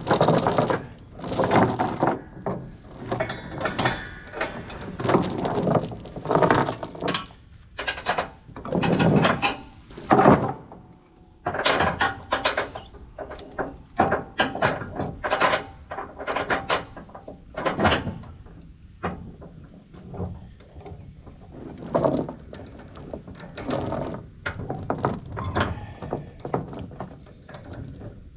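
A long series of irregular knocks, clanks and rattles, like gear or equipment being handled.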